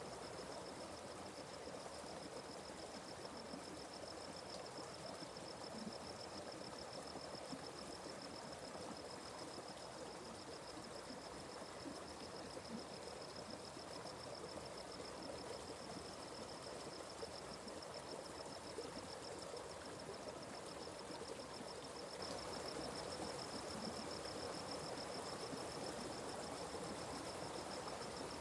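Forest stream flowing steadily, with an insect trilling on one high, even pitch over the water. The sound grows a little louder about 22 seconds in.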